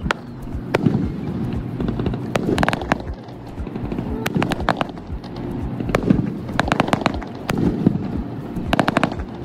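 Aerial fireworks shells bursting overhead: a series of bangs and crackles coming in clusters every second or two, over a low rumble.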